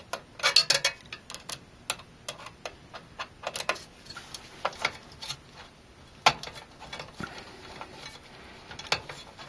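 Irregular light clicks and taps of a CPU tower heatsink and its mounting hardware being shifted and aligned on the processor, with a quick cluster of clicks about half a second in and a sharper click past the middle.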